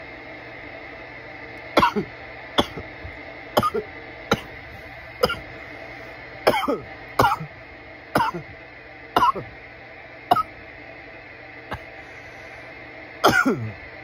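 A man's coughing fit from bong smoke: about a dozen harsh coughs, roughly one a second, beginning about two seconds in.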